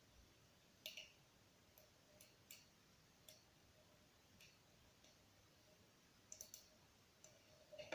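Twist Block fidget toy's plastic segments clicking as they are twisted: short, sharp clicks at uneven intervals, some in quick pairs, with a louder click right at the end.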